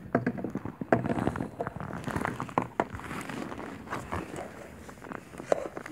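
Large plastic toy building blocks being handled on a tabletop: an irregular scatter of light knocks and clicks as blocks are picked up and set against each other.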